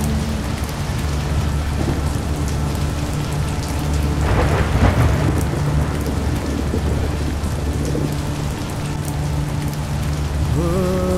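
Heavy rain falling steadily over a low rumble of thunder, with a louder clap of thunder about four seconds in.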